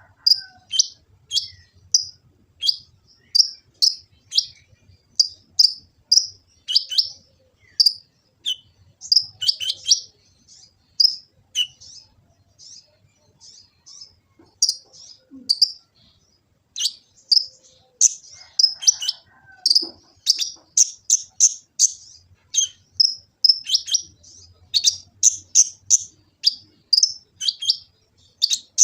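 Kolibri ninja sunbird singing: a long run of sharp, high chirps and short downward-sliding notes, about two a second, thinning out for a few seconds near the middle.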